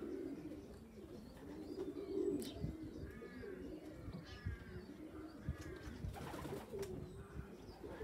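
Racing pigeons cooing, several low coos overlapping one another without a break.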